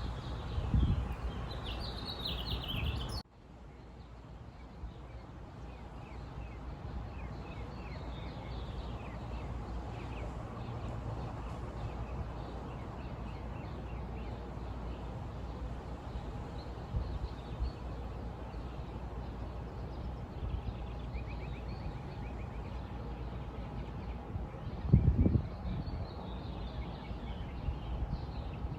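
Outdoor ambience of small birds chirping over a steady low rumble. About three seconds in the sound cuts off sharply and comes back quieter, and near the end there is a brief low thump.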